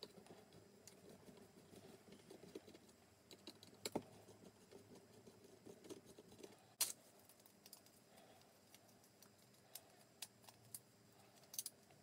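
Faint, scattered clicks and light taps from a small screwdriver undoing small screws, with sharper clicks about four and about seven seconds in.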